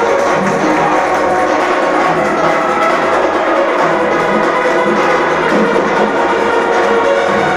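Background music, dense and steady at a constant level.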